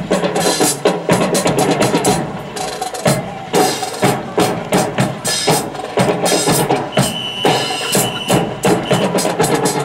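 Drill rifles clacking and slapping as they are handled in unison, over a drum beating the marching cadence with bass drum strokes: a dense run of sharp wooden knocks.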